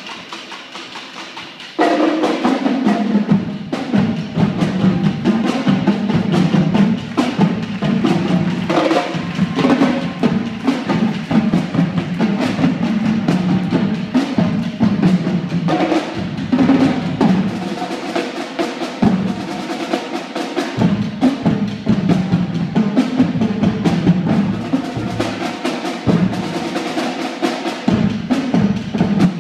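Marching drumline of snare, tenor and bass drums playing a cadence: after a quieter opening it comes in loud about two seconds in, with dense rolls and strokes over the bass drums.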